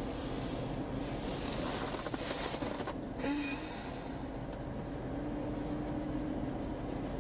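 Steady low rumble and hum of a police cruiser heard from inside the car, with a short rustle about one to three seconds in.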